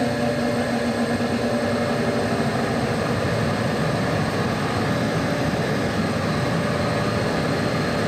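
Gas furnace running: a steady mechanical hum and rush from the inducer blower and burner section, with a faint steady tone that fades out about three seconds in.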